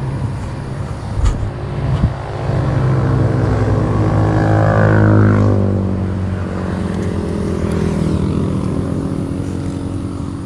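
A road vehicle drives past on the adjacent road. Its engine note swells to its loudest about five seconds in and drops in pitch as it goes by, then fades. Two short knocks come in the first two seconds.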